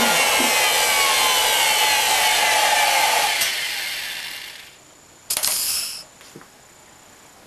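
Router spindle of a homemade CNC router winding down after switch-off: its whine falls in pitch and the rushing noise fades out about four to five seconds in. A short loud hissing burst follows about a second later.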